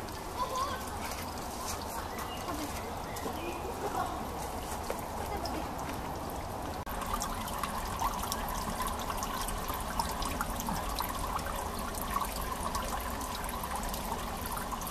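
Water trickling and splashing from a carved stone mask fountain spout, a steady patter of small splashes. After a brief break about seven seconds in, it is louder and closer.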